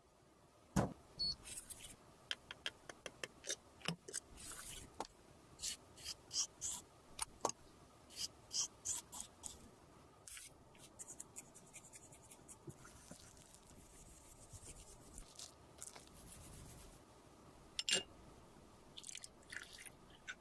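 Close-miked handling of makeup: irregular clicks and taps with soft scraping and sticky squishing of cosmetic paste. The sounds are busy in the first half, thin out in the middle and pick up again near the end with one sharp click.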